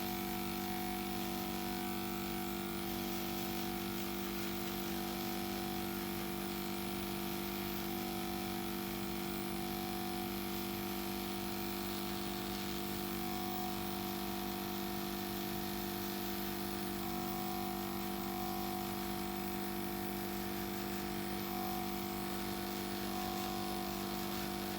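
Small airbrush compressor running with a steady buzzing hum.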